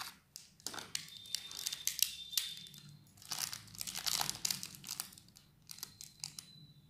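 Small plastic-foil sachet of milk powder crinkling as it is handled and squeezed over a bowl, in several short bouts.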